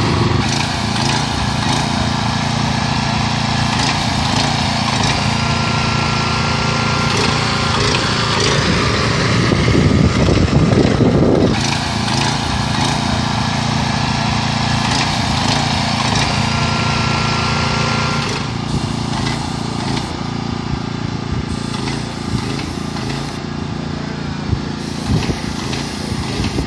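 Small petrol engine of an airless road line-striping machine running steadily, driving its paint pump while it sprays lines. It gets louder with a rushing sound for a couple of seconds around ten seconds in, then settles back.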